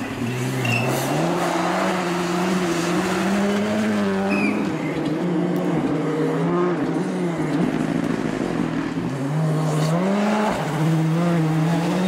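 Rally car engine working hard through a stage, its note climbing and then dropping sharply twice, about four seconds in and again near the end, as the driver lifts or shifts gear, over a hiss of tyres on the loose surface.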